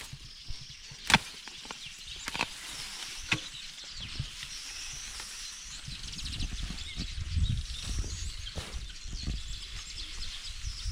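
Birds chirping and trilling outdoors, with a few sharp knocks in the first few seconds, typical of a hand tool striking while grass is cleared. A low rumbling noise comes in about halfway through.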